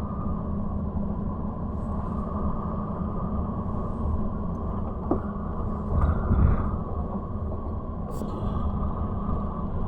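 Steady low rumble of a car driving, heard from inside the cabin, with a louder bump about six seconds in.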